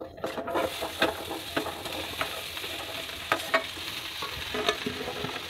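Cut okra sizzling as it goes into hot oil in a kadhai, starting just under half a second in. A steel spatula knocks and scrapes against the pan now and then as the okra is stirred.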